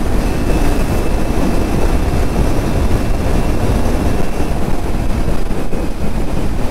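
Sport motorcycle riding at steady cruising speed: constant rush of wind and road noise with the engine running beneath it, and a faint high whine through the first half.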